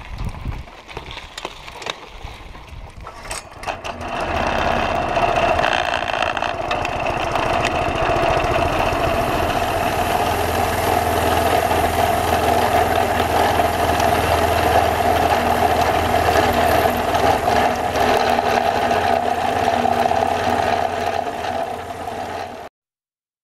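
Small engine on a rail vehicle running steadily. It comes in much louder about four seconds in, after a quieter stretch of clicks and rattles.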